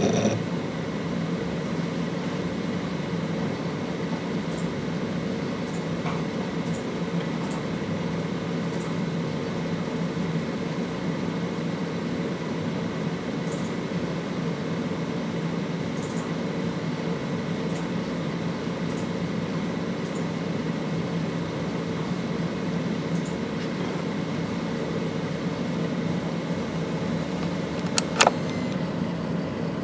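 Western Digital WD2003FYPS (RE4-GP) 2 TB, 5400 RPM-class enterprise hard drive spinning with a steady whir and hum, with a few faint ticks. One sharp loud click comes near the end.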